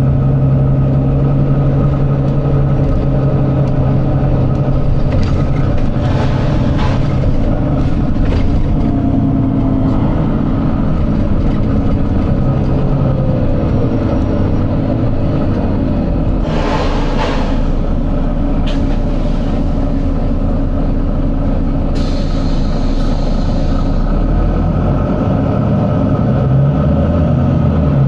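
Volvo B9TL double-decker bus's six-cylinder diesel engine running, heard on board, its pitch shifting and dropping partway through. About two-thirds of the way in comes a short, loud burst of compressed-air hiss from the bus's air system.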